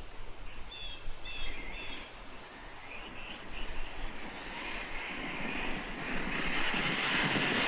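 Losi Tenacity MT 1/10 scale brushless electric RC monster truck running at speed, its motor whine and tyre noise growing steadily louder over the last few seconds as it approaches. Birds chirp in the first couple of seconds.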